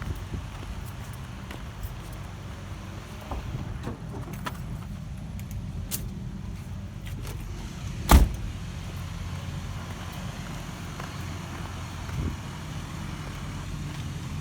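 Caterpillar bulldozer's diesel engine running steadily with a low rumble, with scattered clanks and one loud bang a little over halfway through.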